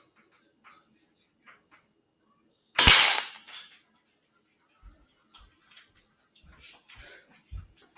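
Spring-powered airsoft SCAR-L replica firing a single shot about three seconds in: one sharp, loud crack that dies away within about half a second. Faint small knocks and rustles follow.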